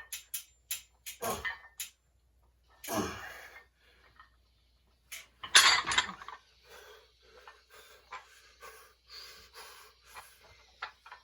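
Heavy breathing of a person lifting weights: forceful, breathy exhales, the loudest about halfway through, then shorter, quieter breaths. A few sharp clicks come right at the start.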